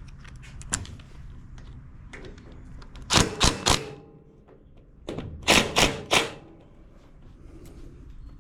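Sharp clicks and clacks of hand tools and small engine parts being handled, in two short bursts of about four strikes each, a few seconds apart.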